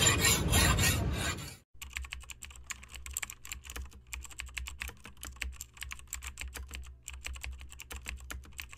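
A hand file rasping in rough strokes across a forged steel dao blade, cut off abruptly under two seconds in. Then a quieter, rapid run of keyboard-typing clicks over a low hum.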